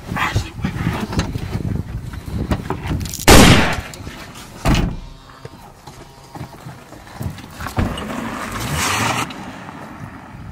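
Rustling and jostling of people moving inside a car, then one loud bang about three seconds in and a heavier thump a second and a half later, with a rush of noise near the end.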